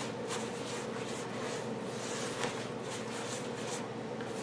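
A spoon stirring thick banana bread batter in a mixing bowl: quiet scraping and squishing, with a couple of faint knocks against the bowl.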